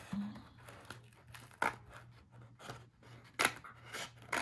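Small scissors snipping through paper: a handful of separate short snips, the two loudest near the end.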